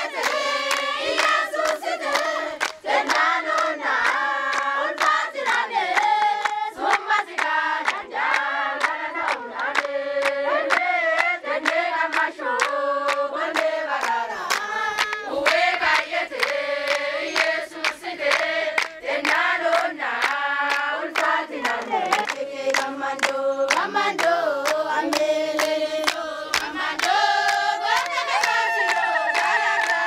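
A group of voices singing together to a steady beat of hand-clapping. Near the end the voices hold long notes.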